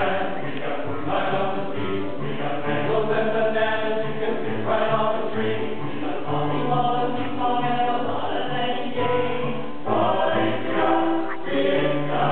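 Men's choir singing in harmony, holding sustained chords in phrases with short breaks between them.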